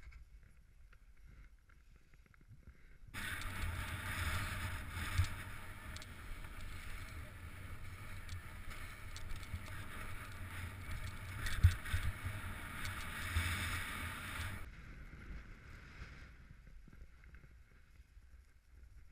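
Hiss and scrape of a rider sliding fast down chopped-up snow, with wind buffeting the action camera's microphone; it starts abruptly about three seconds in and stops just as abruptly about fifteen seconds in, with one sharp thump near twelve seconds. Before and after, only a fainter low wind rumble.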